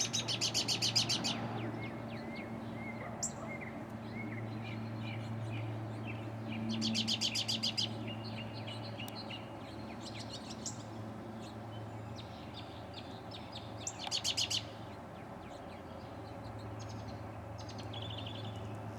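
A songbird singing a rapid, buzzy trill three times, several seconds apart, with scattered softer chirps between. A steady low hum runs underneath.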